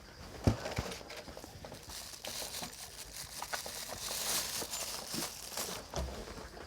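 Hands handling small parts on a workbench: a sharp tap about half a second in, then light clicks and crinkling rustle.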